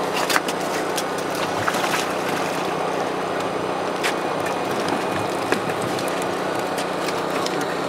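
A motor running steadily at an even pitch, with scattered small knocks and clicks over it.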